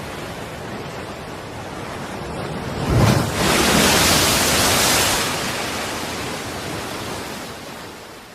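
Sea waves: a steady wash of surf, with a wave breaking about three seconds in, loudest for a couple of seconds, then washing out and fading.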